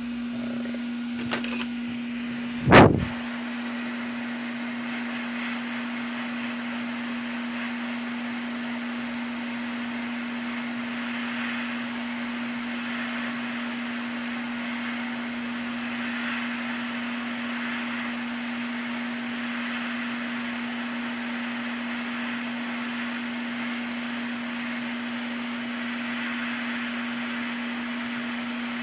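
Steady fan-like electrical hum with a single constant low tone. One sharp knock about three seconds in.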